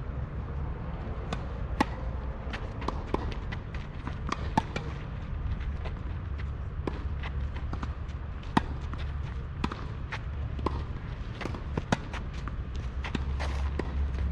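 Tennis balls struck by rackets and bouncing on a clay court during a rally: sharp pops at irregular intervals, the loudest about eight and a half seconds in, over a low steady rumble.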